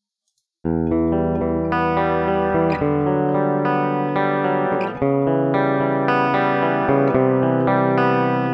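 A rhythm guitar track playing sustained chords that change every second or so, starting about half a second in. It is a single mono recording played back clean, with its effects bypassed.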